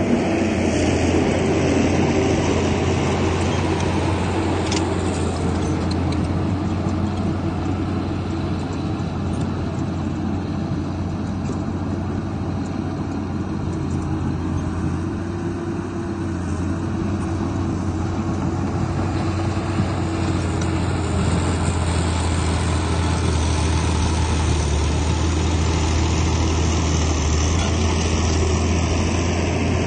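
Heavy diesel engine of earthmoving machinery running steadily, a continuous deep drone with a noisy wash above it. It eases slightly midway and builds again toward the end.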